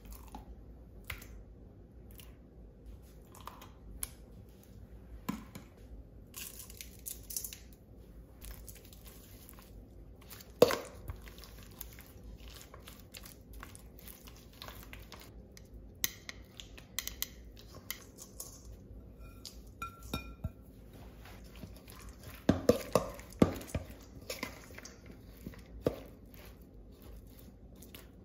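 Metal tongs tapping, clinking and scraping against a stainless steel mixing bowl as raw chicken tenders are turned in a wet coating and then in grated parmesan and panko crumbs. The knocks are scattered and irregular: one sharp ringing clank about ten seconds in and a quick run of knocks a little past the twenty-second mark.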